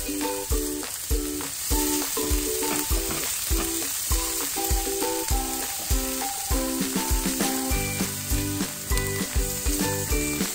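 Mushrooms frying in a grill pan while a spatula stirs them, and pork barbecue skewers sizzling on a stovetop griddle, under background music with a steady beat.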